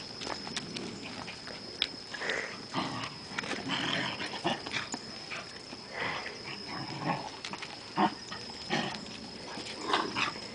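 Dogs play-fighting, with short irregular bursts of dog growls and scuffling.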